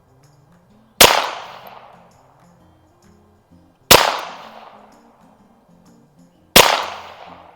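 Three shots from an AMT Lightning .22 LR semi-automatic target pistol, fired about three seconds apart; each sharp crack rings out for about a second.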